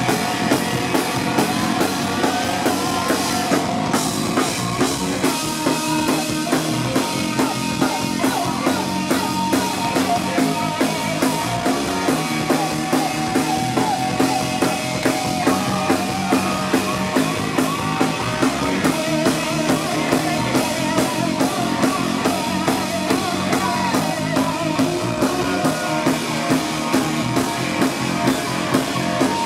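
Live blues-rock trio playing: electric guitar over bass and a steady rock drum beat.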